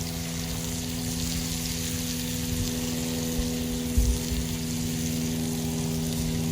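A steady low mechanical hum, like a distant motor, over a constant hiss, with one short thump about four seconds in.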